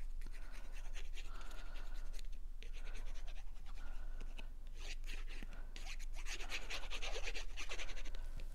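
Fine-tip liquid glue bottle scratching and crackling as its nozzle is drawn along the edge of a cardstock piece, in short strokes that grow louder in the second half.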